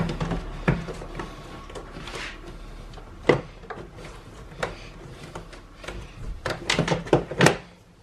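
Scattered clicks and knocks of plastic intake parts being handled and refitted: the mass airflow sensor and air intake hose going back onto the BMW S85 V10's intake, with a cluster of knocks near the end.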